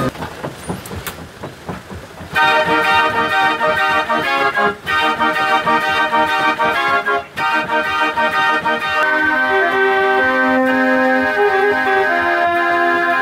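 J. Verbeeck book-playing organ, fed by folded perforated cardboard book music. For about two seconds there are only soft clicks, then the organ comes in with a full, steady tune that dips briefly twice.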